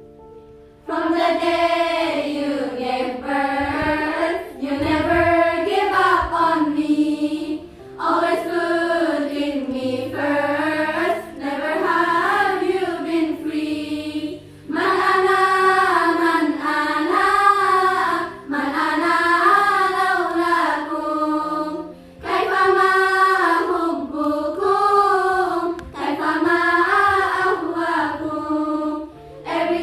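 Girls' choir singing a melody together over a low held accompaniment. The singing starts about a second in and runs in phrases with short breaks about every seven seconds.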